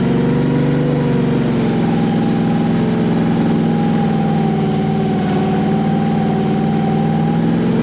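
Honda GX690 V-twin engine of a mini skid steer running steadily, with a steady whine above it. The engine speed sags slightly about a second in, then holds even.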